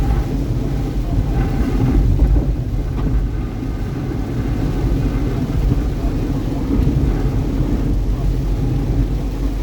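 Steady low rumble of a car driving on a freeway: road and wind noise.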